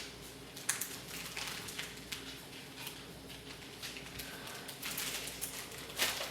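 Light handling noise: scattered small taps and rustles of science-kit packets and plastic pieces being picked up and sorted.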